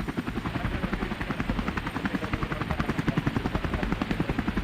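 Helicopter rotor chopping steadily in a rapid, even rhythm.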